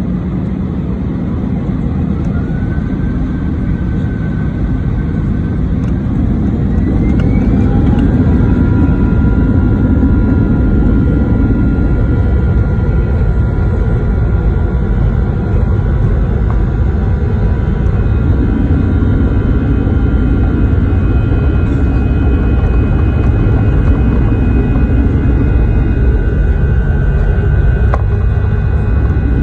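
Airbus A320-214's CFM56-5B4/P turbofans spooling up to takeoff thrust, heard inside the cabin over the wing: the whine rises in pitch and the roar grows louder over the first several seconds. Then a loud, steady roar with a high whine holds through the takeoff roll.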